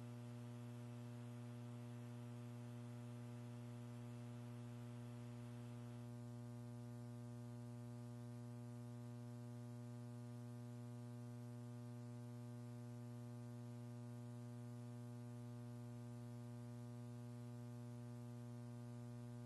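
Faint, steady electrical buzz-hum from the audio feed, with a stack of overtones and a light hiss.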